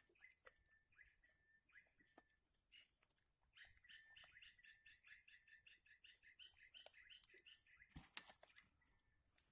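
Faint bird chirping. A few scattered short chirps come first, then a quick run of chirps at about five a second from roughly three and a half seconds in to about seven seconds. A few soft clicks follow near the end.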